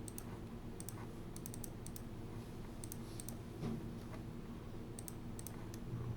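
Computer mouse clicking: scattered short clicks, often in quick pairs, over a faint steady low hum.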